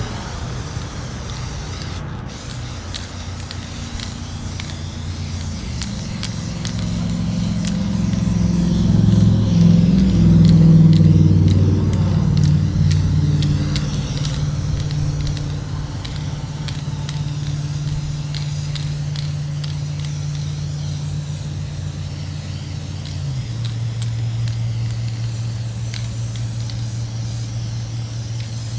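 Aerosol spray-paint can hissing as a fan blade is painted. Under it runs a loud steady low mechanical hum that swells for a few seconds and drops in pitch near the end.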